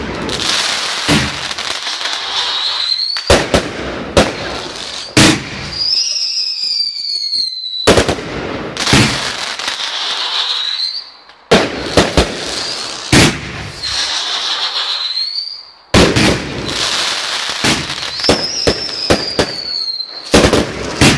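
Aerial fireworks bursting in volleys with loud, sharp bangs and crackling between them. High whistles rise and then fall after several of the volleys.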